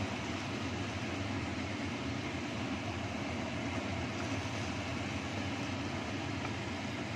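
Kitchen range hood extractor fan running steadily: an even rush of air over a low motor hum.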